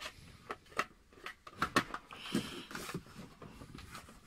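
Handling noise from a telescope tube being turned by hand in its cardboard box: a quick run of light knocks and clicks, then softer rustling and scraping.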